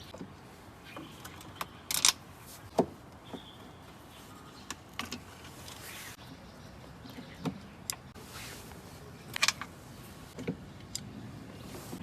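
Scattered clicks, taps and knocks of screws being undone and the protective cover being worked off the base of a washing machine.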